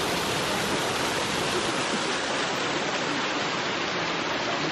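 Rushing water, as from a waterfall or cascade, making a steady, even noise.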